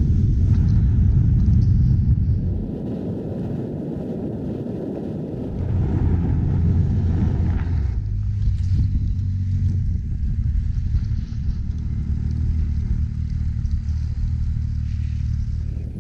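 Wind buffeting the microphone, then, from about halfway in, a snowmobile engine idling steadily close by with a low, even rumble.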